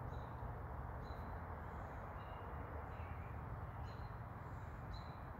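Scattered short, faint bird chirps over a steady low background rumble.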